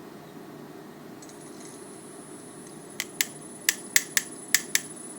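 XAircraft Stella gimbal's brushless motors on power-up: a thin high whine sets in about a second in, then from about three seconds sharp irregular clicks, several a second. The owner takes this for the gimbal failing to initialize.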